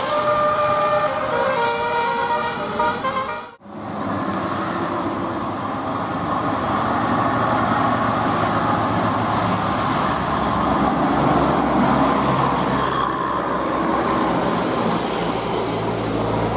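A bus's Basuri 'telolet' multi-tone horn plays a short tune of stepped notes. It stops suddenly about three and a half seconds in. A steady noise of bus engine and road traffic follows.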